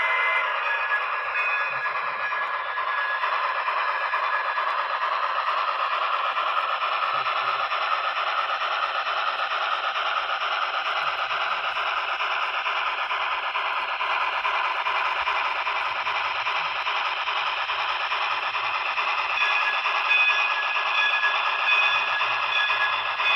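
Steam-locomotive running sounds from the onboard Paragon4 sound decoder of a Broadway Limited N scale 4-6-2 Pacific, coming through its tiny speaker as a steady, thin, tinny hiss with almost no bass. A few clearer tones come in near the end.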